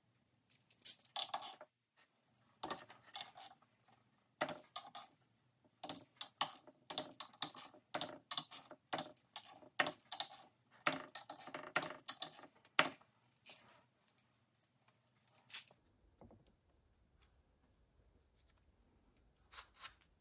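Ratchet wrench clicking in quick runs, stroke after stroke, as the nuts holding the cover on a BMW airhead final drive housing are run down and tightened. The clicking stops about three quarters of the way through, with a few lighter clicks near the end.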